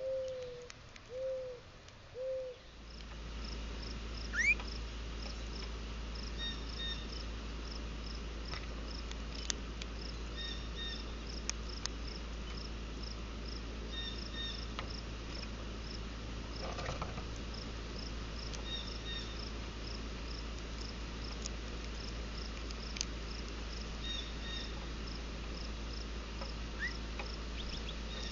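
A dove cooing three or four times, then a steady high chirping, about two to three chirps a second, over a low hum, with occasional short bird chips and a brief rising call.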